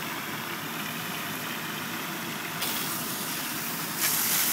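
Steady rushing hiss of water jetting from charged fire hose lines, one on a smooth-bore nozzle, with the pumping fire engine running underneath. The rush gets louder about two and a half seconds in and again near the end.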